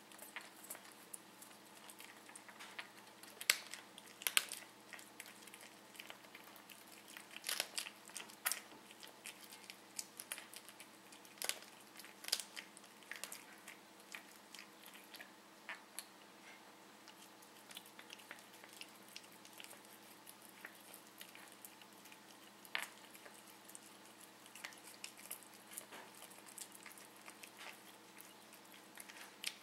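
Siamese cat chewing a meadow vole: irregular sharp clicks and crunches that come in clusters, loudest about four, eight and twelve seconds in, with a single sharp one a little past twenty seconds.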